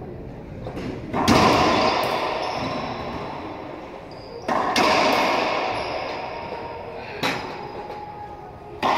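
Racquetball rally: a hollow rubber racquetball struck hard four times, about every two to three seconds, each crack ringing on in the echo of the enclosed court.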